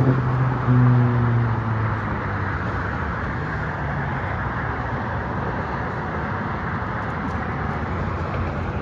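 A car engine passing, stepping up in pitch about a second in and fading within the first few seconds, over a steady rushing noise of traffic.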